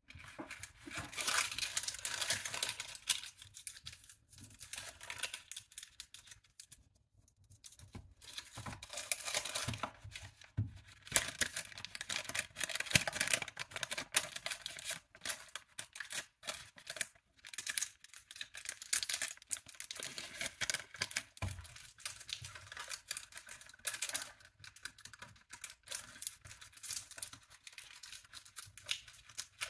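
Baking paper crinkling and rustling as hands fold and crease it around a cardboard box, in irregular bursts with brief pauses.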